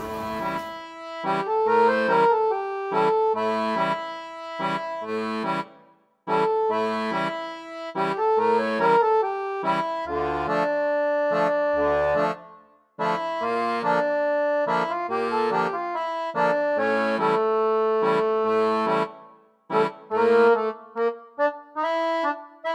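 Instrumental background music: a lively tune in short repeated phrases. It breaks off briefly about 6, 13 and 19 seconds in and ends in short separate notes.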